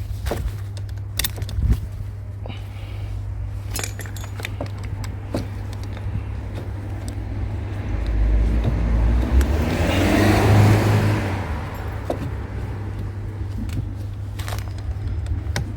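Scattered metallic clinks and taps of hand tools working on scrap, over a steady low hum. A passing vehicle swells and fades between about eight and twelve seconds in.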